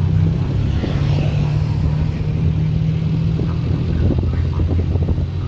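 Steady low engine drone of a moving open-sided vehicle, heard from its passenger seat along with street and traffic noise.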